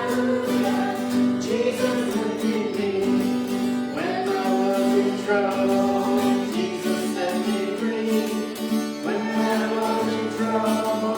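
Group singing of a gospel hymn with guitar accompaniment.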